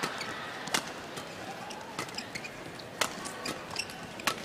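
Badminton rally: rackets strike the shuttlecock five times, about a second apart, with short squeaks of shoes on the court floor between the hits.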